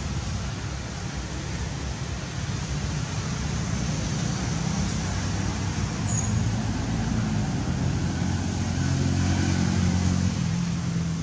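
Motor vehicle engine running steadily as a low hum that shifts slowly in pitch and grows louder in the second half, over a steady hiss.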